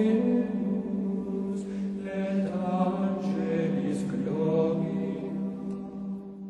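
Sacred vocal chant: voices singing slow, long-held notes over a steady sustained drone note, fading out near the end.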